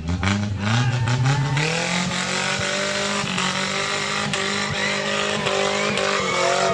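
Off-road 4x4 engine revved hard with its wheels spinning in deep mud as the vehicle tries to pull out of the mud pit. The revs climb over the first couple of seconds and are then held high.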